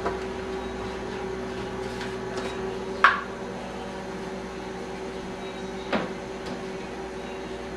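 Steady hum of a microwave oven running, with two sharp knocks, about three and six seconds in.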